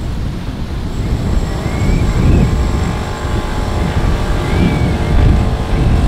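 Wind buffeting the microphone, with the steady hum of a boat engine coming in about two seconds in.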